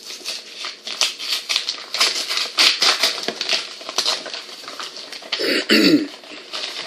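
A paper mailing envelope being torn open and handled: a steady run of crinkling, ripping rasps. About five and a half seconds in there is a short, lower sound that falls in pitch.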